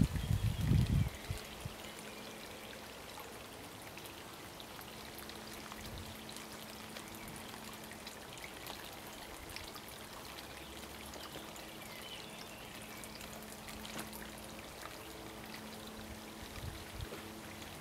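Steady trickling, running water with a faint low hum under it. Wind buffets the microphone in the first second.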